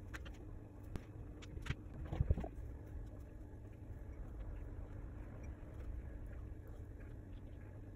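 A few light clicks and knocks from handling painting tools on a table, with a heavier bump about two seconds in, over a low steady rumble.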